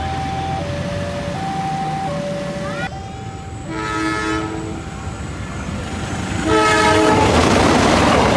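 A two-tone warning alarm alternating between a higher and a lower note about every three-quarters of a second. Then a train's horn sounds a chord, briefly halfway through and again louder near the end, over the rumble of the passing train.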